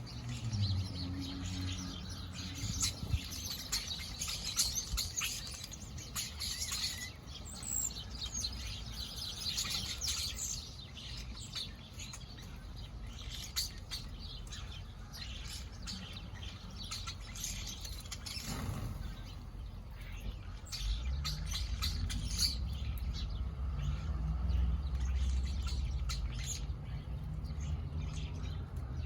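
Backyard birds chirping, many short high calls overlapping, thickest in the first third and thinning out after. A low rumble runs underneath and grows louder in the last third.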